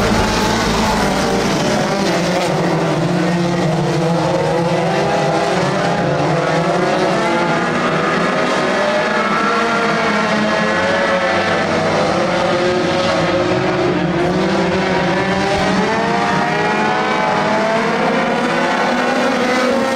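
Several four-cylinder compact dirt-track race cars running laps together, their engines revving up and down in overlapping pitches.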